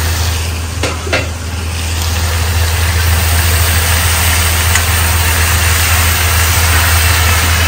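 Food frying in a hot pan, a steady loud sizzle over a low steady rumble, with two light clicks about a second in and the sizzle picking up after that.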